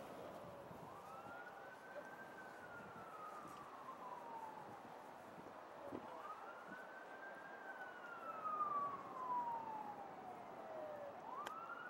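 Faint emergency-vehicle siren wailing: each cycle rises quickly in pitch and then falls slowly over about five seconds, starting again three times.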